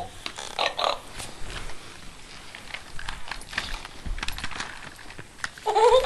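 Two boxer dogs play-fighting over a stuffed toy: short breathy snorts and huffs with scuffling on the carpet, loudest just under a second in. A brief high-pitched call comes near the end.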